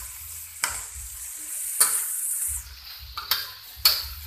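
Spatula stirring and scraping chicken and cabbage in a wok as it sizzles, with several sharp clacks of the spatula on the pan. The sizzle dies down a little past halfway.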